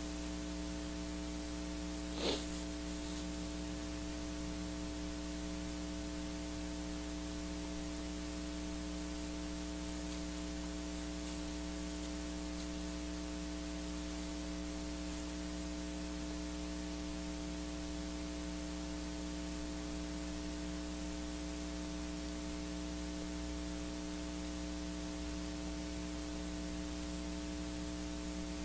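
Steady electrical hum with hiss: the microphone line's noise floor, with no other sound. A single brief click comes about two seconds in.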